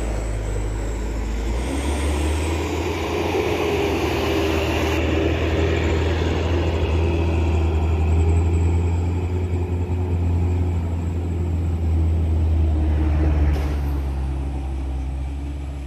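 Diesel engine of a light box truck pulling hard up a steep climb, a steady low drone that swells about halfway through. A car passes close near the end.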